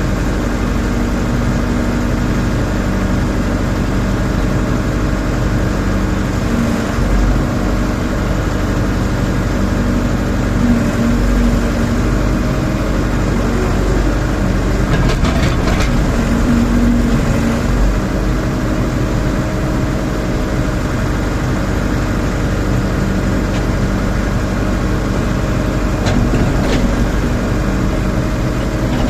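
Diesel engine of a Rondon backhoe loader running steadily as the machine works, its note shifting a little now and then, with a few short knocks about halfway through and near the end.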